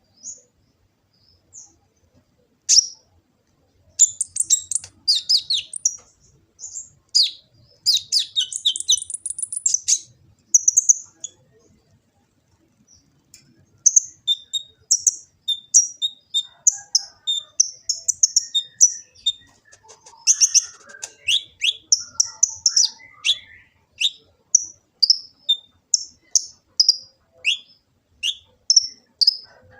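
Kolibri ninja sunbird singing: high, thin chirps and a dense, fast twittering run in the first half, then after a short pause a long string of quick, sharp chirps, about two a second.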